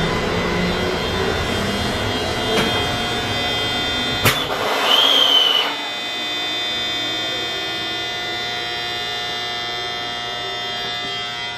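Steady electric hum of the electric commuter train at the platform, several fixed tones held throughout. Around the middle a sharp click is followed by a short, high whistle-like tone lasting about a second, after which the low rumble falls away.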